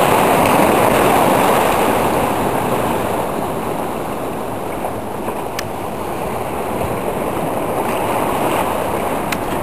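Sea surf washing and breaking over the rocks of a beach groyne, a steady rush of water that swells near the start and again near the end.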